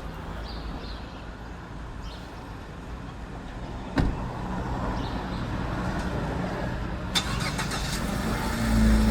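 A motor vehicle's engine running, with a sharp click about four seconds in and another about seven seconds in, getting louder near the end.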